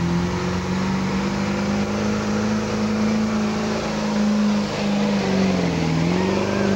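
Diesel pickup engine, a GM Duramax V8 turbodiesel, held at high revs under heavy load while pulling a weight-transfer sled. The revs dip and then climb back about five and a half seconds in.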